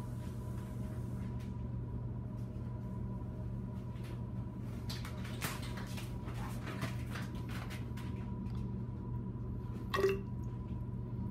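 Water dripping and trickling into a plastic graduated cylinder as it is topped up toward a measured volume, over a steady low hum. About ten seconds in, one sharp clink with a brief ring as the cylinder is handled.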